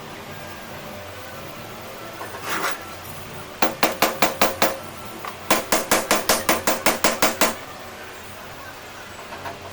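Hammer tapping in two quick runs of light blows, about six a second: first about half a dozen, then, after a short pause, about a dozen. A single softer knock comes before them.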